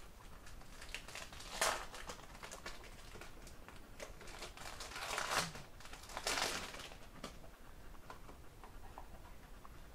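Rustling and crinkling of paper or plastic wrapping as a small gift notebook is handled and unwrapped, with a few louder bursts among quieter handling clicks.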